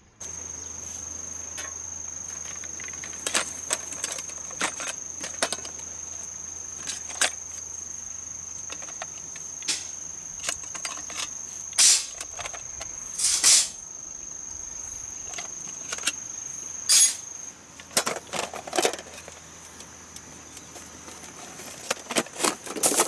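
Steady high-pitched insect trill, with scattered clicks and knocks on top, a few of them louder.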